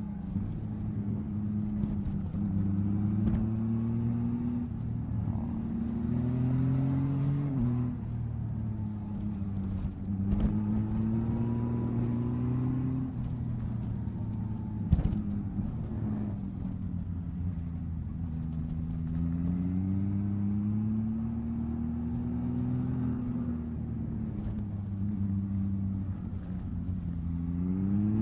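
Yamaha MT-09 SP three-cylinder motorcycle engine under way, its pitch climbing and dropping again and again as the rider accelerates and eases off. Two sharp knocks break through about ten and fifteen seconds in.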